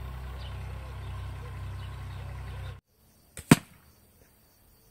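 A steady low rumble that stops suddenly just under three seconds in, then a faint click and a single loud, sharp hit as an arrow from an Assyrian-style fibreglass bow strikes a target of tightly woven carpet layers sandwiched between high-density foam.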